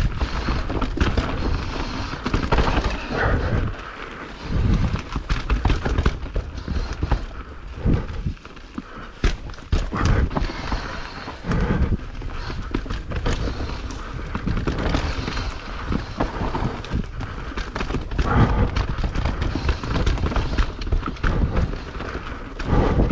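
Mountain bike riding over a rough, wet dirt trail: irregular knocks and clatters from the bike jolting over the ground, over steady tyre and trail noise and a low rumble.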